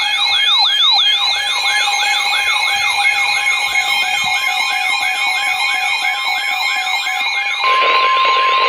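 Electronic siren-type alert sound: a rapid, repeating falling whoop, about three sweeps a second, over steady tones. Near the end it cuts to a single steady tone, the NOAA Weather Radio 1050 Hz warning alarm that opens the next broadcast alert.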